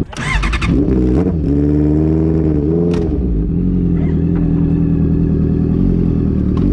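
Honda CB650F inline-four running through a straight-through Mivv MK3 full exhaust with no catalytic converter. It is revved twice in the first three seconds, with a sharp crack as the revs drop, then settles back to a steady idle.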